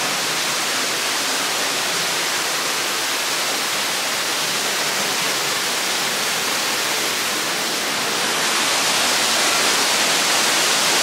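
Small waterfall pouring into a rock pool: a steady rushing hiss that grows a little louder near the end.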